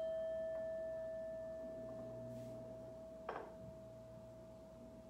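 Hand-held Tibetan singing bowl ringing after a strike, one steady tone with a few higher overtones, slowly fading away. A short soft knock sounds about three seconds in.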